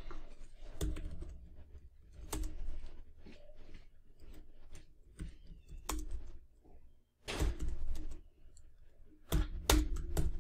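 Typing on a computer keyboard: a run of irregular key clicks as a search phrase is typed, with a few louder knocks among them.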